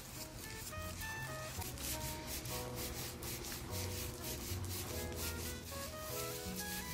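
Rubber-gloved hands scrubbing a lather through wet curly hair, a repeated rasping rub at about four strokes a second, over background music with a melody and bass.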